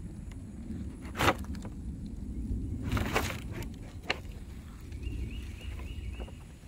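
Open fire of burning bags crackling, with a sharp pop about a second in and a few more pops around three and four seconds in, over a low steady rumble.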